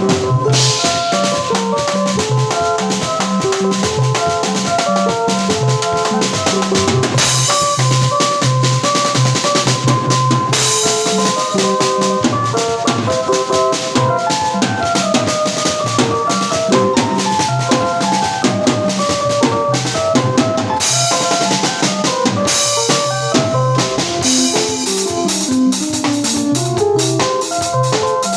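Band music with a drum kit prominent, bass drum and snare beating steadily under sustained melodic notes from other instruments, played during a sound check.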